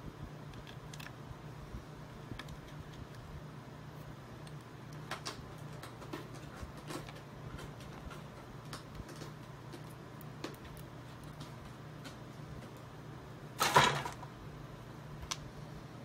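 Faint small clicks and taps of a little screwdriver and screws being worked on the back of a graphics card to fasten a full-cover water block, over a steady low hum. A brief, louder handling noise comes about fourteen seconds in.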